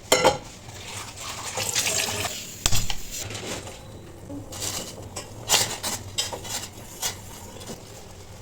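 Kitchen utensils clinking and knocking against dishes or a pan several times, with short splashes of liquid in between.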